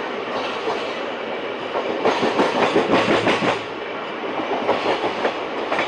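Coach wheels of the fast-running Karnataka Sampark Kranti Express clattering over track joints, heard from the coach doorway over a steady rush of running noise. A denser, louder run of clacks comes from about two seconds in to three and a half seconds, and again near the end.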